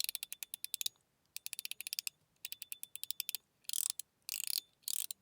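Zirconium Chenu Guardian mechanical fidget slider with a standard, not dense, detent pattern, worked back and forth by hand. It gives three quick runs of sharp detent clicks, about ten a second, then three short sliding rasps near the end.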